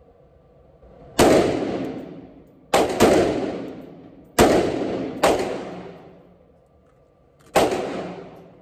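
Six single shots from a short-barrelled Mk18-style AR-15 rifle, fired at an uneven pace with two of them in quick succession. Each report rings off into a long echo in the indoor range.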